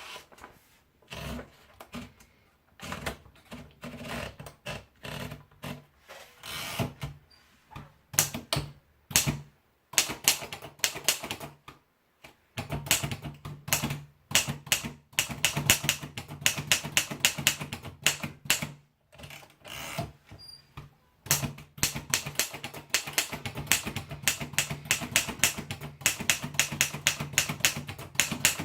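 Torpedo Model 17 typewriter being typed on, keys striking sharply. Slow, spaced keystrokes at first, then after a short pause, fast steady typing with a couple of brief breaks.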